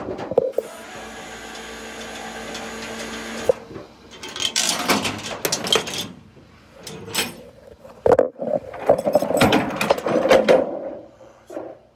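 Steel tow chains and hooks being handled on a tow truck's diamond-plate deck: scraping and clanking, with a burst of sharp rattles and knocks between about 8 and 11 seconds in. A steady mechanical hum runs for the first few seconds.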